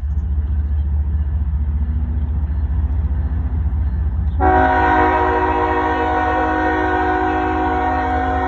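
CSX freight locomotive's diesel engine rumbling low and steady, then about four seconds in its air horn begins one long, unbroken blast.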